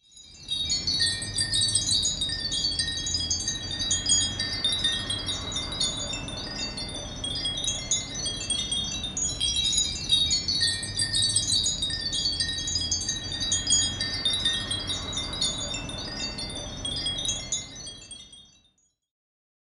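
Wind chimes tinkling in a dense, irregular jangle over a low steady rumble, fading in at the start and fading out near the end.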